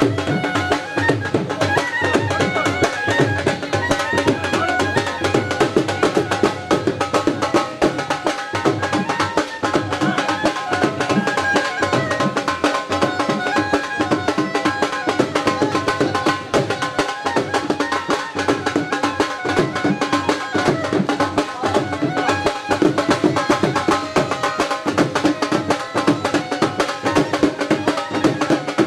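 Drums played in a steady, fast rhythm, with a sustained melodic line over them, without a break.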